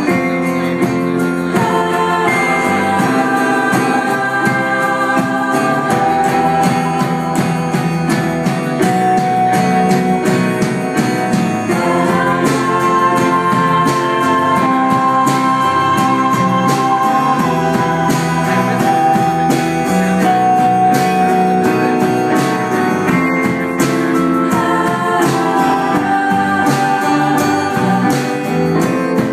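Live band playing a song: a woman sings lead over electric and acoustic guitars, holding long notes.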